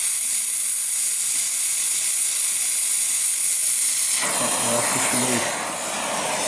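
Oxy-acetylene gas-welding torch hissing steadily as it melts a seam in sheet steel with filler rod. About four seconds in the sound changes character.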